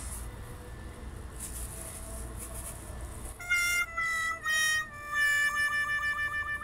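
A short phrase of music with a reedy, harmonica-like tone comes in about halfway through: three short notes stepping down in pitch, then a long held note with a steady wobble. Before it there is only a faint low room hum.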